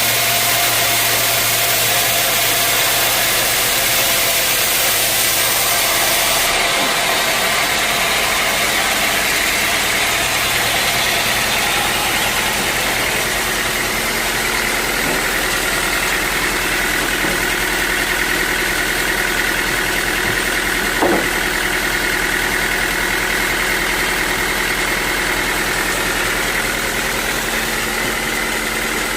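Sawmill machinery running steadily, with a noisy hum, a few faint steady whines in the middle range, and a single sharp knock about 21 seconds in.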